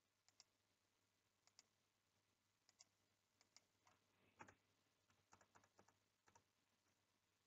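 Faint computer mouse clicks and keyboard keystrokes: a few clicks in pairs, then a quick run of keystrokes in the middle.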